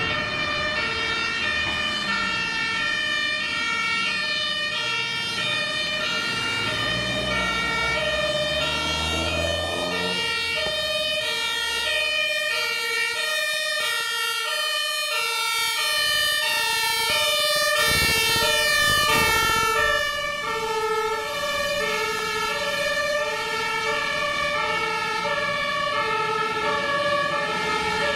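German two-tone Martinshorn sirens of several fire engines under emergency signal, their high-low tones alternating and overlapping out of step. Heavy truck engine rumble rises under them in the first ten seconds, and a louder rush of a vehicle passing close comes about two-thirds of the way in.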